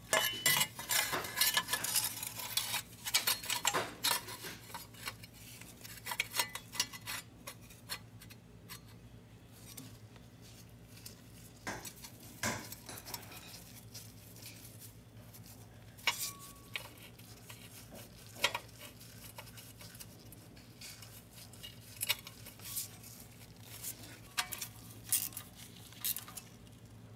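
Scattered metallic clinks and taps as a small sheet-metal shield over a transmission's electrical connector is fitted and bolted on with a socket wrench. The clinks are busiest in the first few seconds, then come singly.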